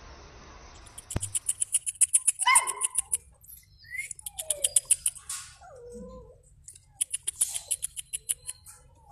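Samoyed puppies whining and giving short high yelps, some calls rising and some falling in pitch. Mixed with them are two runs of fast, sharp clicking, about ten clicks a second, which are the loudest sound.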